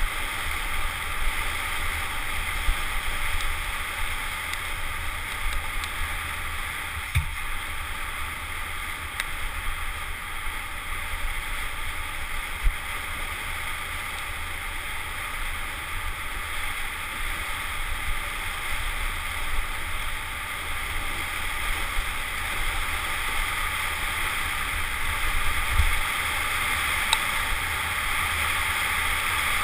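Steady rushing of wind and trail noise on a helmet-mounted GoPro as a bike descends a dirt trail at speed, with a few sharp knocks from bumps.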